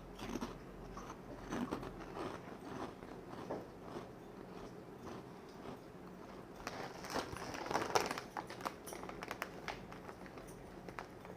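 Someone biting and chewing crunchy potato chips, with irregular crisp crackles that are busiest about seven to eight seconds in.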